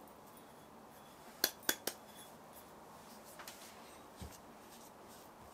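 Three quick, light clinks of kitchenware close together about a second and a half in, followed by a few faint small knocks.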